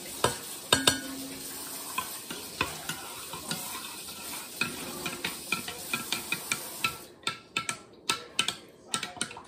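Kitchen tap running as an item is rinsed under it, with small clinks of dishware throughout. The water shuts off about seven seconds in, followed by a few separate sharp clinks and knocks.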